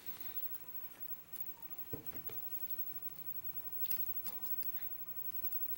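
A few faint, scattered clicks and taps of small metal lock parts being handled: twice about two seconds in, and again near four seconds and just after.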